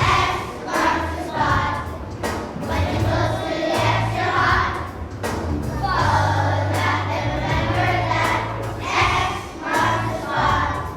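A choir of young children singing a song in unison over an instrumental accompaniment with a moving bass line.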